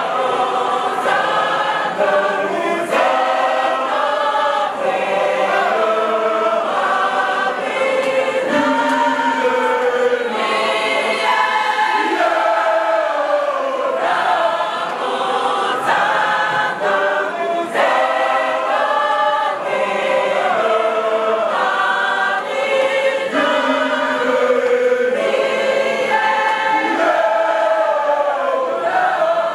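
Large church choir of women and men singing together, a hymn carried on many voices without a break.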